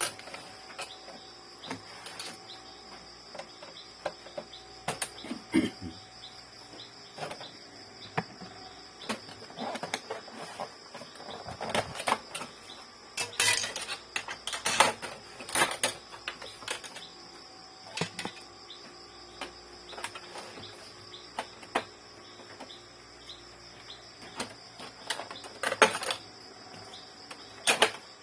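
Irregular clicks, taps and clatter of plastic and metal parts being handled as an Epson L3110 inkjet printer is taken apart, busiest in the middle stretch, over a steady high-pitched background tone.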